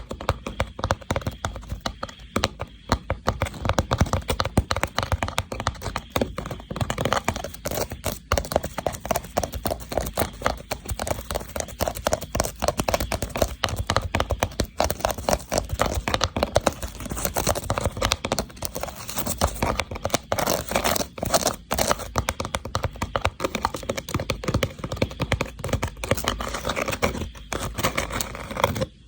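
A woven rattan box being tapped quickly and continuously, making a dense stream of small clicking taps.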